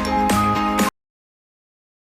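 Background music with a steady beat and struck notes, cutting off abruptly about a second in, then digital silence.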